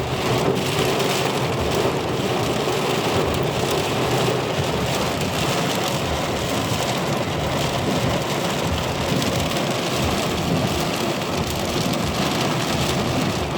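Very strong rain pouring down steadily in an unbroken hiss.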